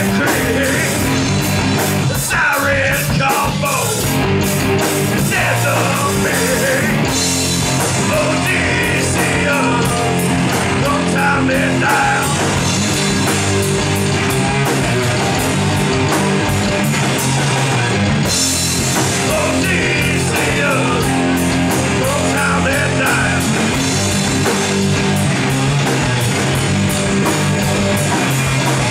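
Heavy rock band playing live, loud and steady: electric guitars over a drum kit, with cymbals. A pitch-bending lead line comes and goes over the band.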